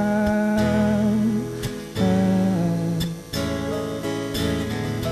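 Acoustic guitar strummed in a slow, gentle rhythm, accompanying a song between sung lines.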